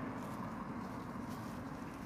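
Faint crinkling of a thin plastic bag being held open by hand, a few soft crackles over a steady background hum.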